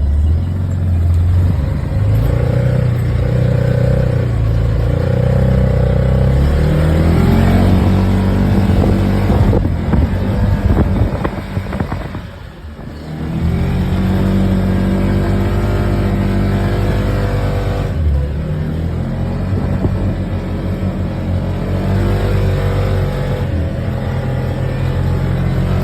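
Car engine running and revving, its pitch stepping up and down repeatedly, dropping off briefly about halfway through before picking up again.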